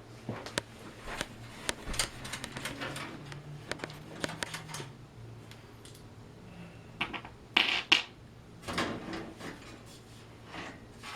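A desktop computer case being opened by hand: a quick run of small clicks and taps, then a few louder scrapes and knocks about two thirds of the way in.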